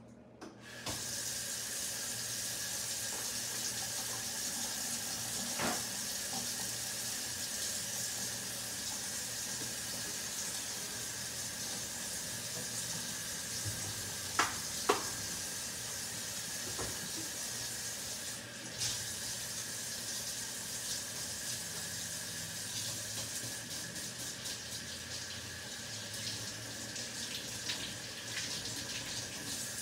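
Kitchen faucet running into a stainless steel sink: turned on about a second in, running steadily, and shut off near the end. Two sharp knocks come close together about halfway through.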